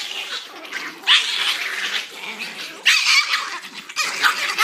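Chihuahua growling in several short, harsh bursts, one about every second and a half, over a chew bone.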